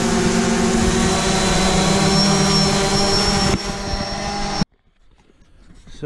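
Three DJI quadcopter drones, a Phantom 4 Pro Plus, a Mavic Air and an Air 2S, hovering together: a steady propeller buzz made of several overlapping hum tones, which cuts off about four and a half seconds in.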